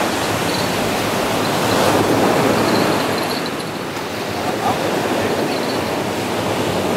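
Surf breaking and washing up a sandy beach: a steady rushing noise that swells about two seconds in and eases off again.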